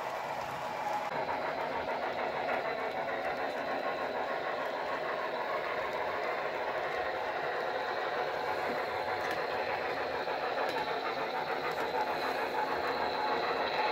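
HO-scale model train running: a Broadway Limited sound-equipped locomotive's speaker sounds together with its freight cars' wheels rolling on the track, steady and growing a little louder near the end.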